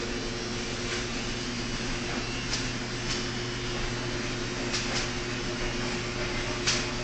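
A plastic bag crinkling in short sharp rustles about six times as a cat attacks it, over a steady mechanical hum and hiss.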